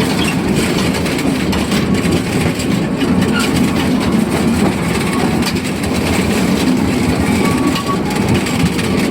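Narrow-gauge forest railway train behind the Amemiya No. 21 steam locomotive, heard from aboard while it is moving: a steady rumble of wheels on rail, with irregular light clatter.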